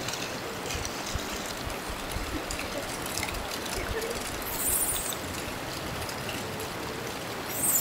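Hot spring water trickling and flowing steadily over rocks, with a brief high hiss a little past halfway.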